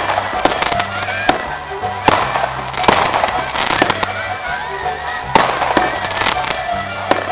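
Fireworks going off in a quick irregular series of sharp bangs and crackles, over music with a steady bass line.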